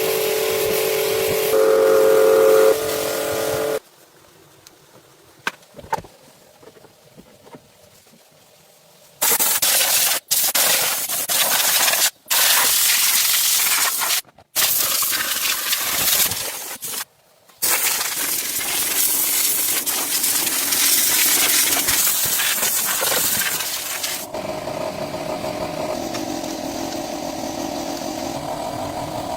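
Loud hiss of a spray or blowing air, starting and stopping several times, with a few clicks in a quieter stretch before it.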